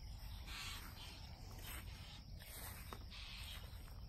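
Faint outdoor ambience: a steady low rumble with a few soft rustles and light ticks.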